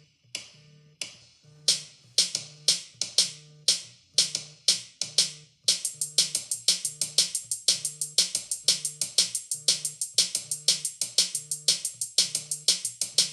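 Electronic polyrhythm ringtone: several streams of short, bright percussive ticks over low pitched tones, each stream at a different rate. The hits get louder about two seconds in and come much faster from about halfway through, at five or more a second.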